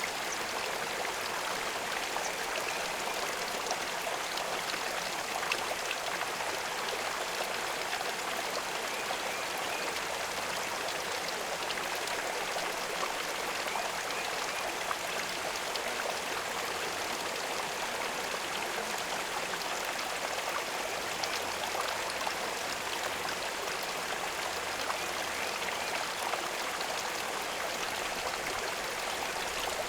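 Water running steadily, a stream-like trickle with scattered small drips and splashes.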